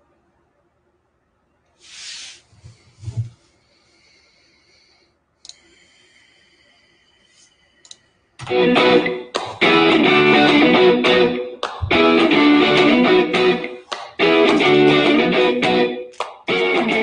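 Guitar-led intro music starts about eight seconds in and plays loudly, with a few brief dips. Before it there are a few soft knocks and faint tones.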